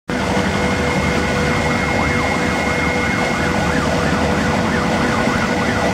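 Kvaerner Fjellstrand Flying Cat 40 catamaran ferry running its engines and stern waterjets hard, churning the water. A loud steady rush carries two constant high whines, with a wavering tone rising and falling over it.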